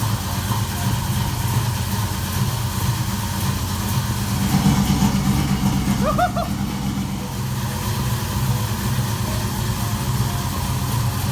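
Car engine idling steadily with its exhaust cutout open, a deep unmuffled rumble that swells a little midway. A brief shout is heard about six seconds in.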